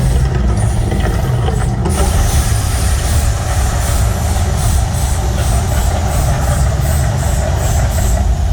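Loud, steady deep rumble of the Mirage volcano show's eruption effects. About three seconds in, a fast, even pulsing of about three beats a second joins it in the upper range.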